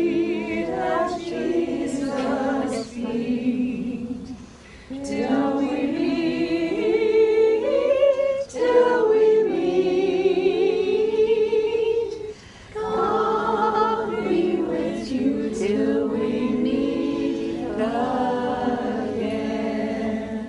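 A group of voices singing unaccompanied, in phrases a few seconds long with short pauses between them.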